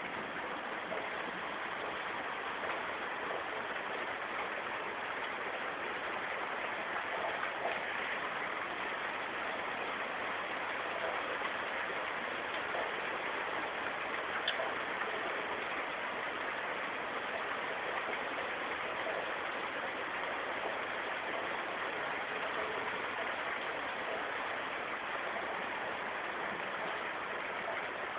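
Rain from a thunderstorm shower falling steadily in an even hiss, with a few faint drips ticking.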